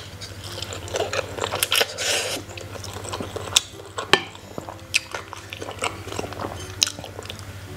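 A person chewing a mouthful of spicy instant fried noodles close to the microphone, with wet mouth sounds and a few sharp clicks. A low steady hum runs underneath.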